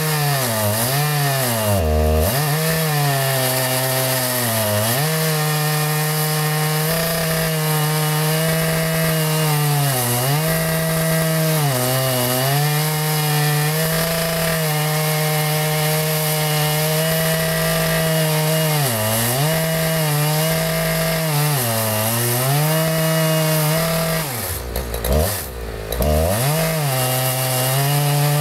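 Chainsaw ripping lengthwise through a maple log in a milling cut. The engine runs at high speed with its pitch sagging and recovering again and again as it takes the load, with a deeper sag and a brief dip in loudness near the end.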